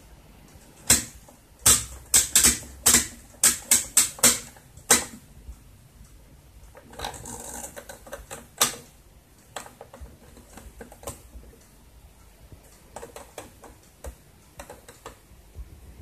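AEG Öko-Lavamat 60600 washing machine's rotary program selector clicking sharply, about ten clicks over four seconds as the dial is turned through its settings. Near the middle comes a short rasp and one more loud click as the temperature dial is turned, followed by fainter scattered clicks.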